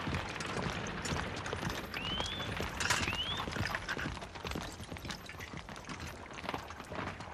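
Horse hooves clip-clopping on cobblestones as a horse-drawn carriage moves, with a rattle of the carriage. Two short rising whistles come about two and three seconds in.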